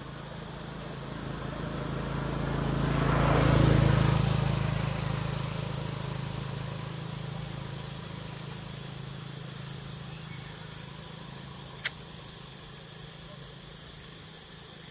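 A vehicle passing on the road: it grows louder, is loudest about four seconds in, then fades away, over a steady low hum. A single sharp click comes near the end.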